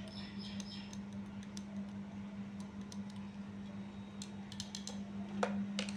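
Faint ticks and taps of a stirring stick in a glass test tube, with a few sharper clicks near the end, over a steady low hum.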